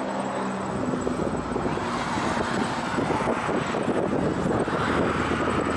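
Road traffic: a vehicle engine's steady hum for about the first second, then the steady rush of passing vehicles.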